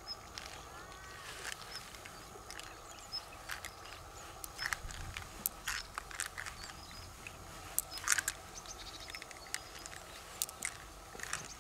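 Scattered small wet clicks and squelches from gloved fingers squeezing pearls out of the soft flesh of an opened freshwater river mussel.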